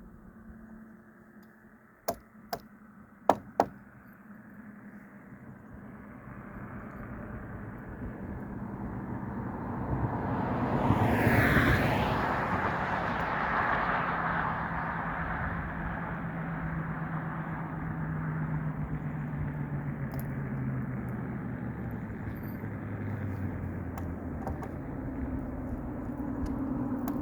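A motor vehicle going by on the road: its noise swells over several seconds to a peak about eleven seconds in, then a low engine hum lingers. Four sharp clicks come a couple of seconds in.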